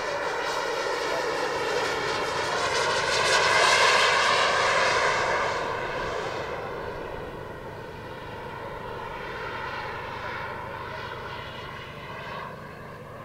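Four Wren Super Sport micro gas turbine engines of a giant radio-controlled Vickers VC10 model in flight: a jet whine over a rushing roar that swells to its loudest about four seconds in, then fades as the model banks away.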